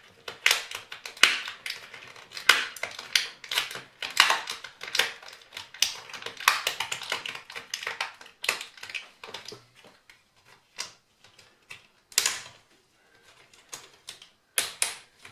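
Plastic screen bezel of an HP Envy m6 laptop clicking and snapping as its clips are prised loose with a card. Rapid runs of sharp clicks for the first nine seconds or so, then scattered single clicks.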